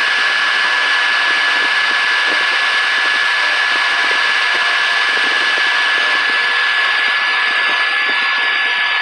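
Small benchtop CNC milling machine cutting an aluminium workpiece with a small end mill: the spindle and cut make a steady high whine over a constant hiss.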